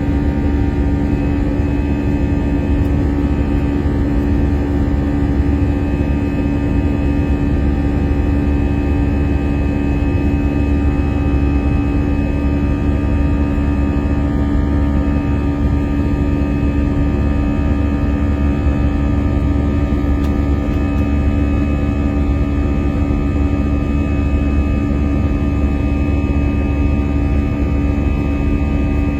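Steady jet-engine and airflow drone heard inside the cabin of an Airbus A321 climbing after takeoff: a strong low rumble with a few steady hums running through it, unchanging throughout.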